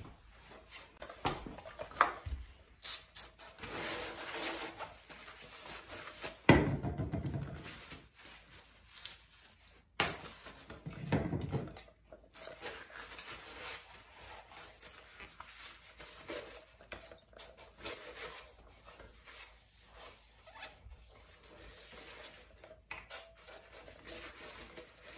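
Quiet cleaning and handling sounds: a hand pump spray bottle being sprayed and a rag wiping and rubbing the cast-iron engine block, with a few clicks and knocks and a louder thump about six seconds in.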